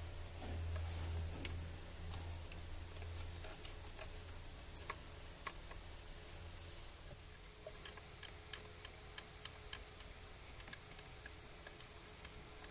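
Small hand ratchet clicking in short runs of ticks as bolts on the water pump housing of an Audi A5 2.0 TFSI engine are turned, over a low hum that fades after the first few seconds.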